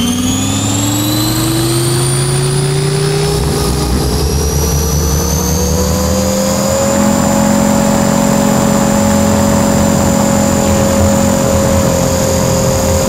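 Align T-Rex 500 RC helicopter heard from its onboard camera: the electric motor and drivetrain whine rises in pitch over the first seven seconds or so as the motor speeds up, then holds steady, over a constant rush of air noise.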